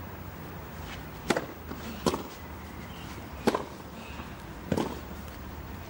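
Tennis ball struck by rackets, four sharp hits: a serve about a second in, then the return and two more rally strokes.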